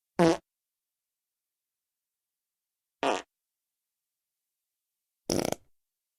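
Three short fart sound effects, about two and a half seconds apart, with dead silence between them. The last one is a quick sputtering fart.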